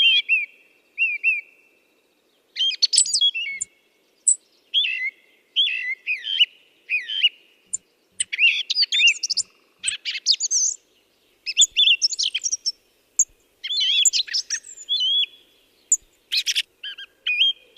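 Birds chirping in quick runs of short, high, rising and falling notes, with brief pauses between the runs.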